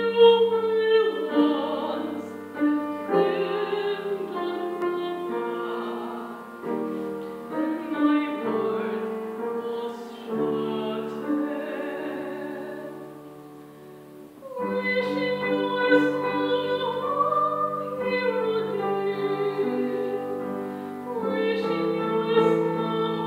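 Upright piano and a classical female voice performing a slow ballad in sustained chords. The music fades to a soft moment a little past halfway, then swells back in with a strong new entry.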